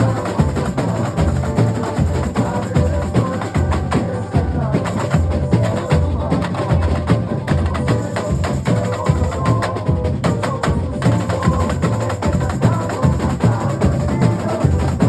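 A carnival comparsa's drum corps (batería) playing a steady, driving groove together: deep bass drums pulsing underneath dense snare and sharp woodblock-like hits, without a break.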